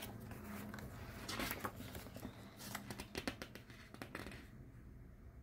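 Glossy photo-book pages being handled and turned by hand: soft paper rustles and crinkles with scattered sharp ticks, busiest about a second and a half in and again around three seconds.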